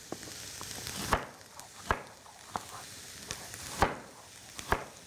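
Chef's knife chopping carrots on a wooden cutting board: a run of about seven sharp knocks, irregularly spaced, over the faint steady sizzle of onions and garlic sauteing in a skillet.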